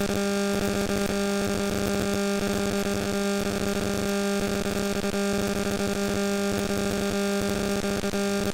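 Steady electrical hum with a low buzzing tone and hiss, unchanging throughout.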